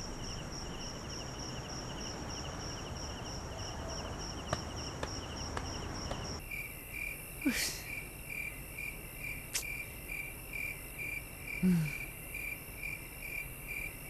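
Crickets chirping in a steady pulsing trill. About six seconds in it switches abruptly to a different, lower-pitched cricket chirp, with a few faint knocks after that.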